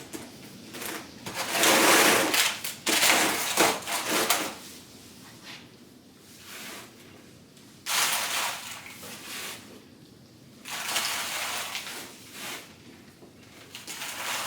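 Sieved compost being scooped and pushed into plastic module seed trays: rustling, scraping bursts, the longest about a second in and two shorter ones later.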